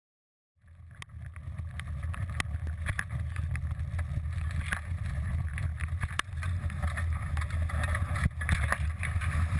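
Wind buffeting the microphone over rushing water aboard a Laser Vago sailing dinghy, with many sharp knocks and slaps. It starts abruptly about half a second in and slowly grows louder.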